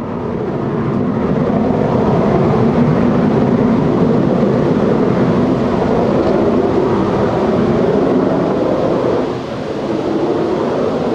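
Gulfstream G550's twin Rolls-Royce BR710 turbofan engines running loudly and steadily as the jet rolls along the runway, a low hum running through the jet noise. The loudness dips briefly about nine seconds in.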